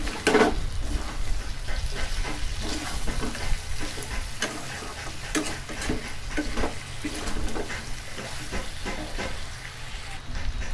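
Metal spatula stirring and scraping chicken pieces around a wok as they fry in spiced oil, a run of scrapes and knocks against the pan over the sizzle. The oil has separated from the meat: the kosha slow-fry is nearly done.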